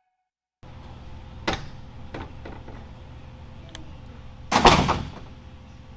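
Steady room hum with a few light clicks, then a louder brief scuffing bump about two-thirds of the way through, like handling or a door moving.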